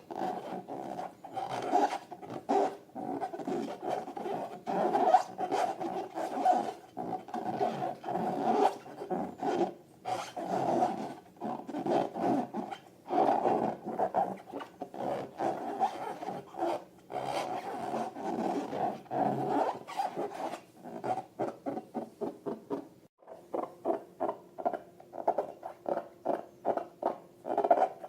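Rubber of long balloons being rubbed and squeezed by hand, a steady-pitched squeaking rub made of many short strokes, turning into quick, even strokes of about three or four a second near the end.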